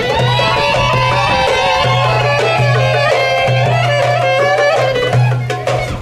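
Traditional folk dance music: an ornamented lead melody that slides between notes, over drum strokes and a held low bass note.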